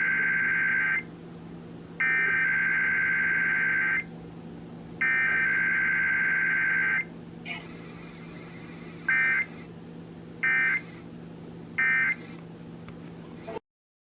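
Emergency Alert System Required Weekly Test received on FM radio: the SAME digital header's warbling data tones sound three times, each burst lasting about two seconds. Three short end-of-message bursts follow. A steady low hum runs underneath, and the audio cuts off abruptly near the end.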